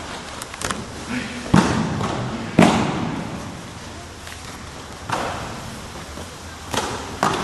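Aikido partners' bodies hitting the mat in thrown breakfalls: a run of sharp thuds and slaps, about seven in all, each ringing in a large hall. The loudest two come a second apart, about two seconds in.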